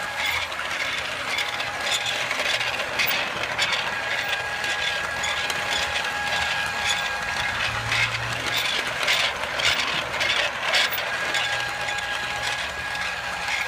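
Battery-powered motorized Lego Duplo train running around plastic Duplo track and pushing a second Duplo engine: a steady small-motor whine with a constant plastic rattle and frequent clicks from the wheels on the track.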